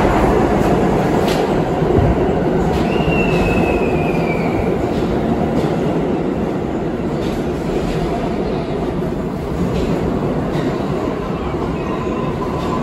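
R46 subway train running into an underground station past the platform: a steady rumble of the cars with clicks of the wheels over rail joints. About three seconds in, a brief high wheel squeal sliding slightly down in pitch.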